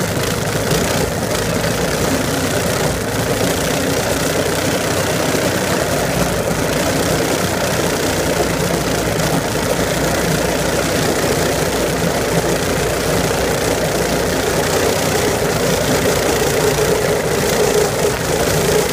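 A vehicle engine running steadily with a rough, rumbling noise, a little louder near the end.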